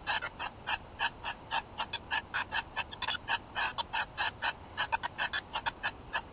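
A SpiritVox ghost-box app plays through a smartphone's speaker. It gives a rapid, choppy stream of short clipped bursts of sound, about six a second.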